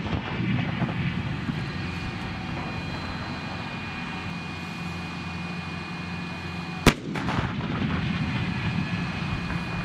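M109 Paladin 155 mm self-propelled howitzer firing: the long rumble of a shot carries across the field, and a single sharp report from another shot comes about seven seconds in, with more rumbling after it.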